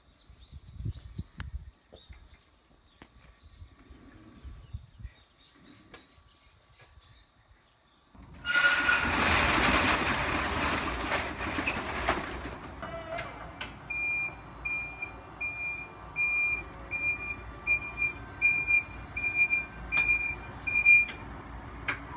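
A metal roller shutter rattling as it is pushed up, a loud burst of about four seconds. After it, a Toyota forklift's warning beeper sounds about twice a second for some seven seconds and stops shortly before the end.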